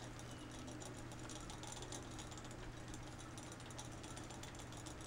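Squirrel drinking from a hanging water bottle's metal spout, a rapid, irregular run of faint clicks as it laps at the tip.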